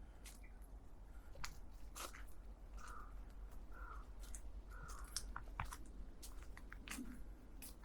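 Footsteps on a forest mountain path: irregular, faint sharp crunches and crackles of feet on dry leaves and twigs.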